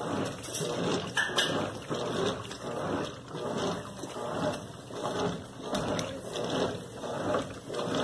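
GE Super Capacity top-load washing machine agitating a full load: the dual agitator churns water and clothes, making a rhythmic sloshing swish that swells a little faster than once a second.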